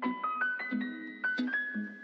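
Background music: a light melody of quick, separate pitched notes.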